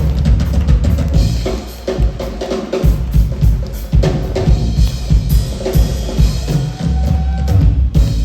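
Rock drum kit played live in a drum solo: dense strokes of bass drum and snare, with fills.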